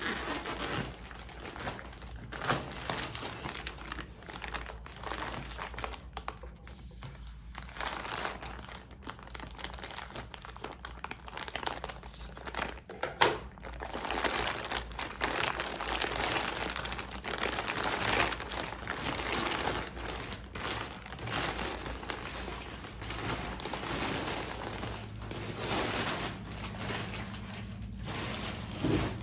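Packaging crinkling and rustling as a heated blanket is pulled out and unpacked, with one sharp crack about midway.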